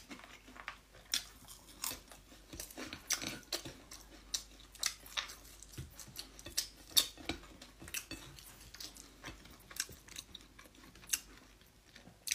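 A person chewing and eating close to the microphone: irregular short wet mouth smacks and clicks, a few a second.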